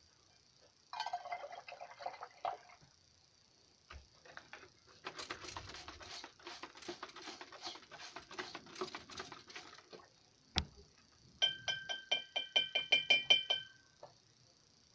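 A stirring stick clinking against the inside of a glass jar of solution: a first ringing clink, then a stretch of rapid clicking and scraping, a single sharp click, and near the end a loud run of evenly spaced ringing clinks, about five a second.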